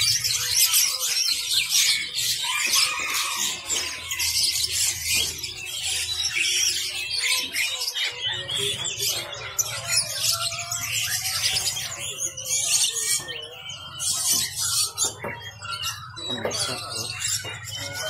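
Many caged birds chirping and twittering at once, a dense, high-pitched chorus that never stops, over a low steady hum.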